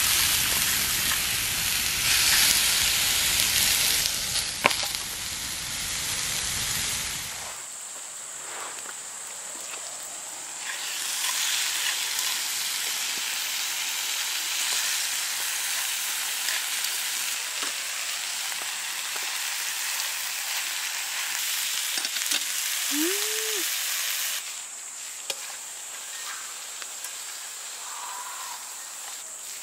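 Marinated meat sizzling and frying in a steel frying pan over a wood campfire, stirred now and then with tongs. The sizzle is loudest for the first seven seconds or so, then drops to a quieter steady frying.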